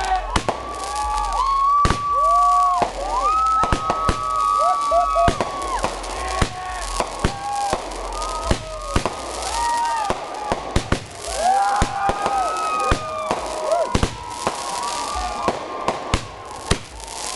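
Fireworks going off in a dense barrage: many overlapping whistles, each rising, holding and then dropping off, among a rapid run of sharp bangs and pops.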